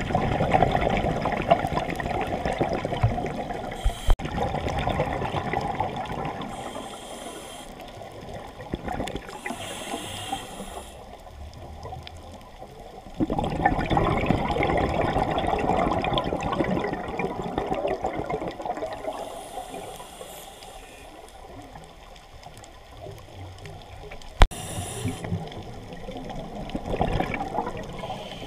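Scuba diver breathing underwater through a regulator: long bursts of exhaled bubbles, three times, each lasting several seconds, with quieter spells and short high hisses of inhalation between them.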